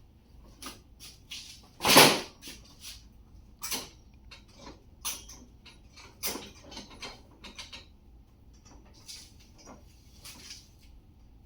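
Irregular clicks, taps and knocks of metal cart parts and tools being handled during bolt-together assembly, with one loud knock about two seconds in.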